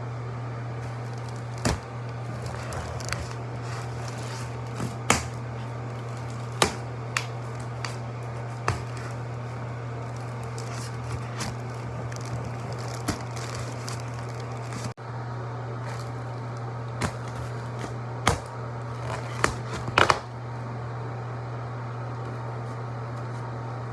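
Stabbing and ripping sound effects: a series of short, sharp stab and tear sounds at irregular intervals, with a closer cluster of them about two-thirds of the way through. A steady low hum runs underneath.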